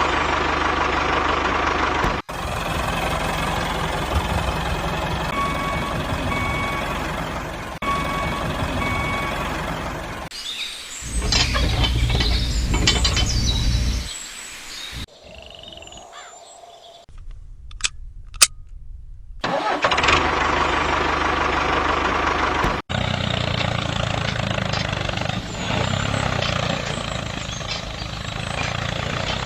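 Vehicle engine running steadily, heard in a string of short cuts. It is louder and deeper from about a third of the way in, then drops away to a quiet stretch with a few clicks before picking up again.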